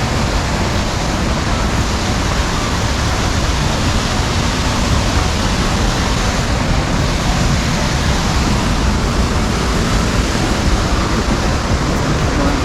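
Loud, steady rush of water pouring over Baby Falls, a waterfall.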